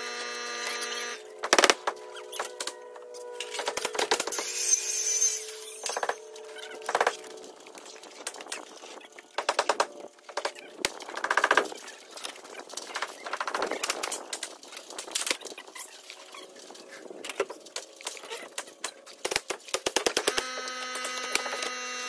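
Pneumatic nail gun shots and knocks of lap siding boards being nailed up, some singly and some in quick runs. A steady machine hum stops about a second in and starts again near the end.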